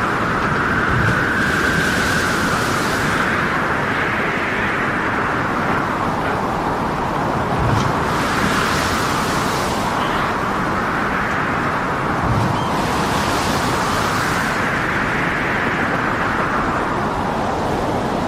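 Storm at sea: a continuous rush of wind and heavy waves that swells and eases every few seconds, with a dull low thud about every five to six seconds.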